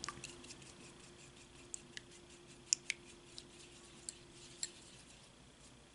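Silicone mask spatula stirring a thick mask mixture in a small glass bowl: faint, scattered clicks and taps as the tool knocks against the glass, about seven in all.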